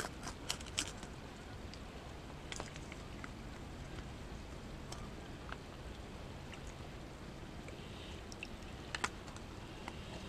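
Faint water sounds as a minnow is fished out of a water-filled bait container and water spills onto the table, with a few light handling clicks from the container, the sharpest about nine seconds in.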